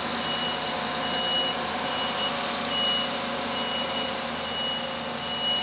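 Reversing alarm beeping steadily, a high beep just under once a second, over the steady running of a Claas Lexion 760 combine harvester.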